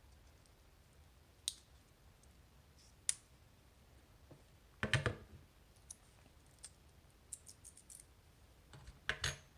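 Small sharp metal clicks and taps from an Assa 600 lock cylinder and a shim being handled while the shim is worked in around the plug to gut the lock. The clicks are scattered and irregular, loudest about five seconds in and in a quick cluster near the end.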